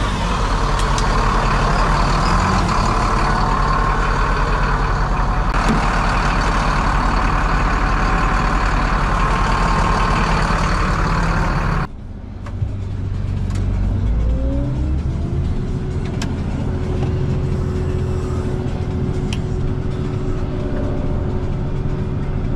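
Diesel tractor engine running just after a successful jump-start. About twelve seconds in, a louder, hissier layer cuts off suddenly. Then a whine rises in pitch for a couple of seconds and holds steady over the engine's hum.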